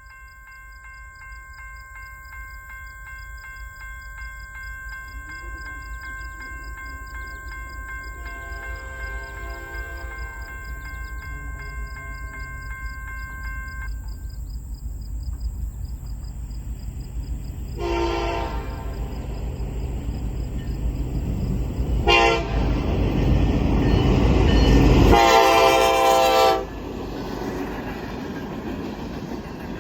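Norfolk Southern manifest freight train approaching a grade crossing, its locomotive rumble building steadily. In the second half the locomotive horn sounds a short blast, a very brief one, then a long loud blast that cuts off suddenly, and the train's rumble carries on.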